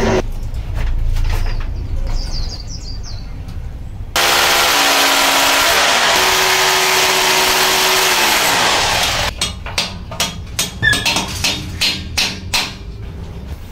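A handheld power tool starts abruptly and runs loudly for about five seconds, its motor pitch dropping as it winds down. Then comes a quick series of about ten sharp knocks.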